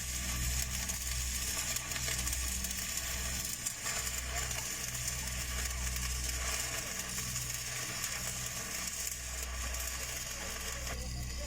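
Stick (SMAW) welding arc crackling and sizzling steadily as a downhill pass is run on large-diameter pipe, over a low machine hum that comes and goes.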